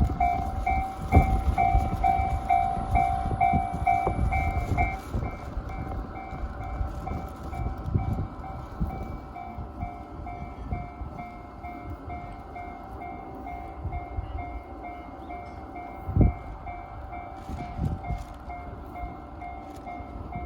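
JR-standard electronic level-crossing alarm ringing in a steady, evenly repeating two-pitch ding. A train rumbles through with clunks from its wheels, loud for the first five seconds or so and then fading, and there is one more knock near the end.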